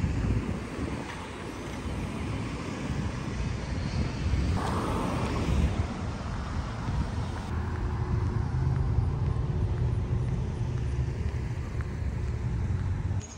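Street traffic: cars driving on a town street, heard as a steady low noise, with one brief louder passing sound about five seconds in.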